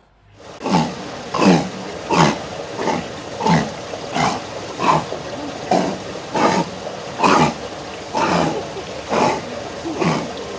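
A seal calling in a steady run of short falling moans, about thirteen of them, one every three-quarters of a second or so.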